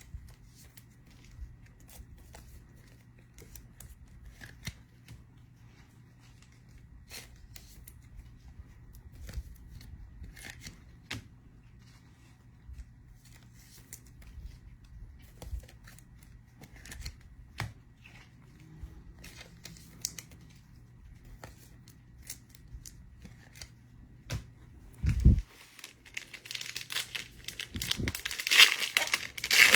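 Faint clicks and shuffling of trading cards being handled, then near the end a foil card pack torn open with loud crinkling, after a soft thump.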